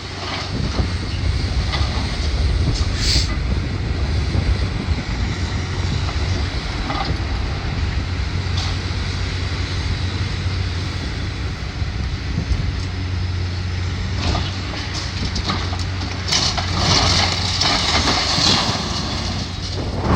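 Heavy demolition machinery running steadily while tearing down a building, with crashing and scraping of falling debris, a brief crash about three seconds in and a dense spell of crashing in the last several seconds.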